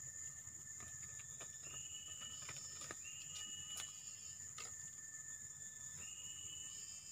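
Forest ambience: a steady high insect drone, with a high, level whistled call repeated three times, each about a second long, and a few faint clicks.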